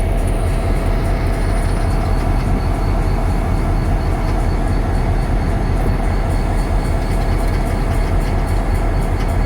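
EMD diesel locomotives, a GP38-2 and an SD50-2, idling with a steady low throb.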